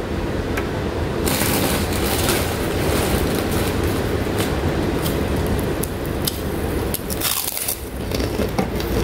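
Close-miked eating sounds: crunchy chewing of deep-fried sea bass and rice, in crisp crackles starting about a second in, over a steady rushing background of heavy rain.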